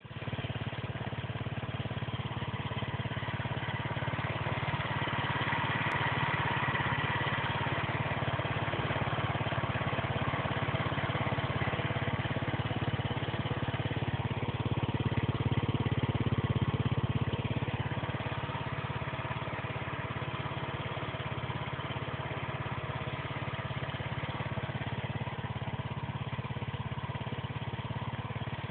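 1999 KYMCO G2 scooter engine idling steadily, with the abnormal noise that the owner is asking about at 80,000 km; it swells a little louder about halfway through, then settles back.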